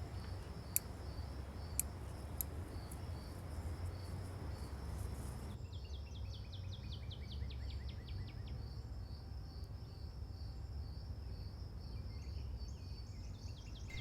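Insects, cricket-like, chirping in a steady pulsing high trill over a low background rumble. Three sharp clicks come in the first few seconds, and a quick run of short falling chirps comes around the middle.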